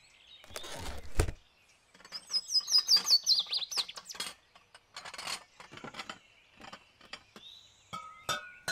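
A small bird chirps a quick run of falling notes about two to three seconds in, over scattered light clicks, knocks and rustles. Near the end come two short ringing clinks.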